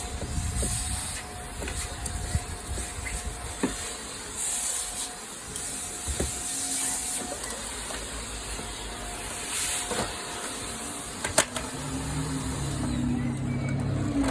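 Vacuum cleaner running, its suction hissing and changing pitch as the nozzle moves over the car's seats and carpet. A sharp click comes about eleven seconds in, after which the steady whine drops out and a lower hum takes over.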